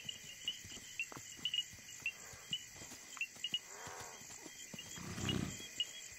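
Night insects chirping steadily, with a large animal's short pitched call about four seconds in and a louder low, rough grunt a little after five seconds.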